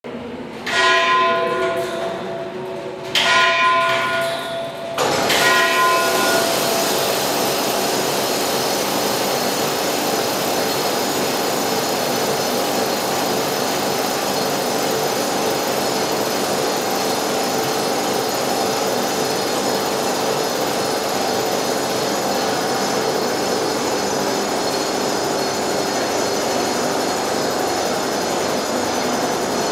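Tower clock bell struck three times for the three-quarter hour, each stroke ringing on and the third weaker. From the third stroke on, a loud, steady mechanical noise runs without change.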